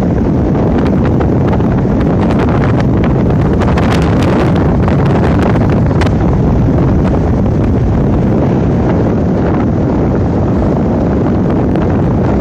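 Strong wind buffeting the microphone: a loud, steady, rumbling rush with scattered crackles, over the wash of ocean surf.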